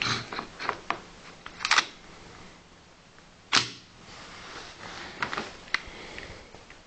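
Mechanical clicks and clacks from handling a KJW KP-06 gas blowback airsoft pistol, with a brief rattle near two seconds in and one louder sharp clack about three and a half seconds in.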